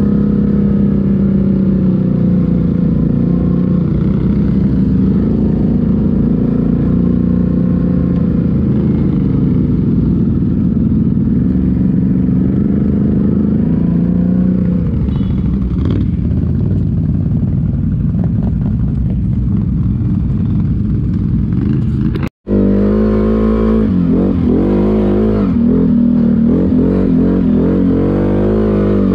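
ATV engine running under load, its pitch rising and falling with the throttle. It cuts out for a split second about two-thirds of the way through, then comes back revving up and down more sharply.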